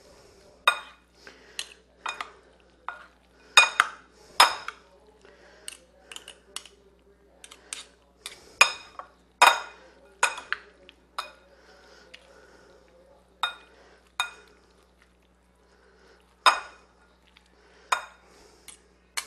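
Two metal forks clinking irregularly against a ceramic bowl while tossing wide egg noodles in meat sauce. The clinks are sharp and briefly ringing, some much louder than others, with quieter stirring of the noodles between them.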